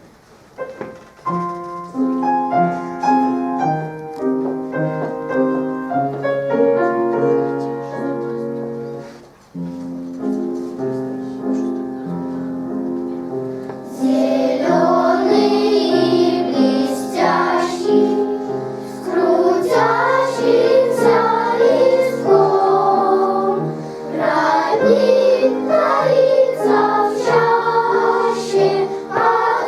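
Piano introduction, then a children's choir singing a song in Russian with piano accompaniment; the voices come in about halfway through.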